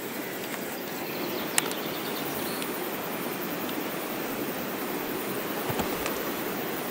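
Steady rushing outdoor background noise, with one sharp click about a second and a half in and a couple of fainter knocks near the end.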